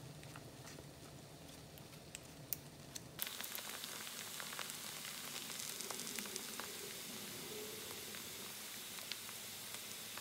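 Potato strips frying in a nonstick pan: a soft sizzle that turns louder and brighter about three seconds in, with scattered light clicks as toppings are dropped onto them.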